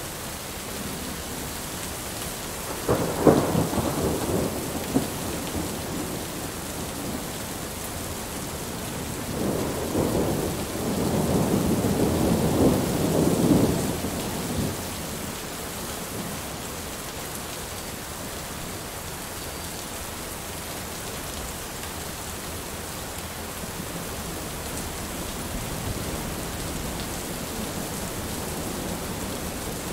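Heavy rain falling steadily, with thunder: a sharp thunderclap about three seconds in, then a longer rolling rumble from about ten to fifteen seconds in.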